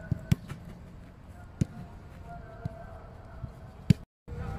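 Footballs being kicked: a sharp thud just after the start, then a few fainter kicks spread through the rest.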